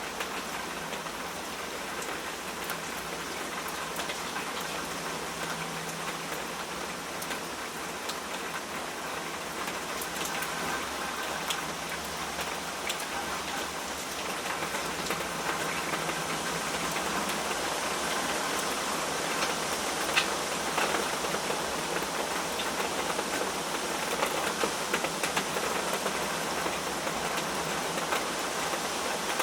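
Steady rain falling, a constant hiss with many small drop ticks scattered through it, growing a little louder in the second half.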